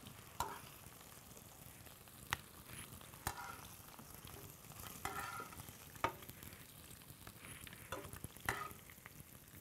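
Thin seared beef slices sizzling faintly in oil in a frying pan as metal tongs lift them out, with several sharp clicks of the tongs against the pan; the meat is fully browned and being taken off the heat.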